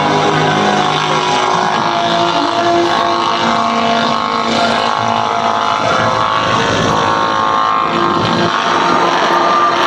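Lockheed Super Constellation's four Wright R-3350 Cyclone 18-cylinder radial piston engines and propellers droning in flight. It is loud and steady, with several overlapping engine tones drifting slightly in pitch against one another.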